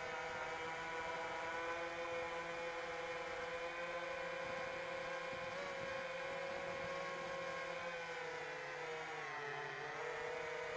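Seven-inch FPV quadcopter (iFlight Chimera 7 Pro) in flight, its motors and propellers making a steady whine; the pitch sags briefly near the end and climbs back.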